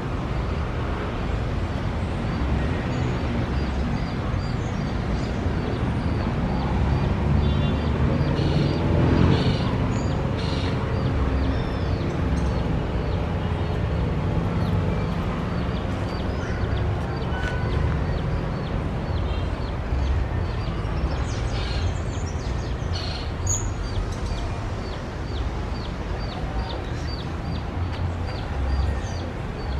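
Outdoor ambience of a steady low rumble with a short, high tick repeating about twice a second, and brief bird calls a third of the way in and again past two-thirds.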